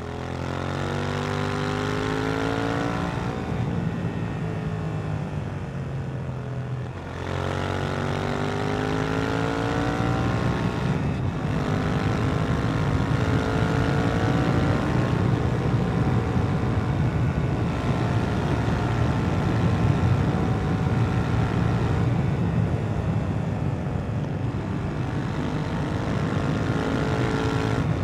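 2018 KTM 790 Duke's parallel-twin engine through its stock exhaust, pulling hard under acceleration: the pitch climbs, then drops at upshifts about three and eleven seconds in, before the engine runs more steadily at speed with small rises and falls in revs.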